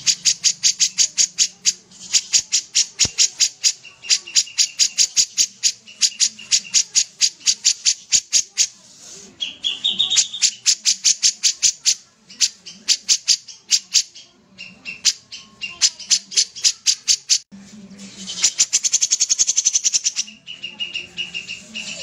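Caged kapas tembak, a crested bulbul, singing in full voice: long rapid trains of sharp chattering notes at about six a second, broken by short held whistles, one rising slightly about halfway through. Near the end there is a denser, faster rattle.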